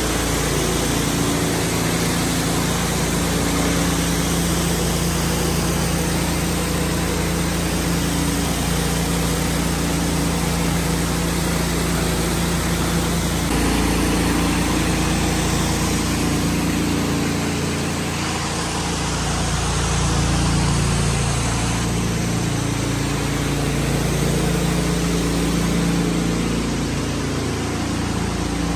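Pressure washer engine running steadily, with the even hiss of a rotary surface cleaner spraying water onto a concrete floor.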